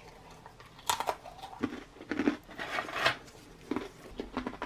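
Close-up chewing and crunching of a dry ration cracker: several irregular crunches.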